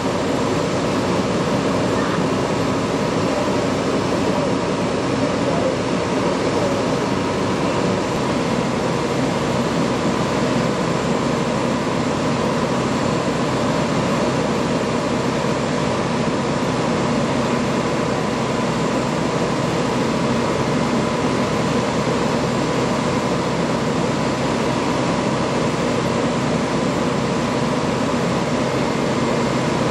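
Steady mechanical drone of a fire truck's engine running at the scene, unchanging throughout, with a faint steady whine running through it.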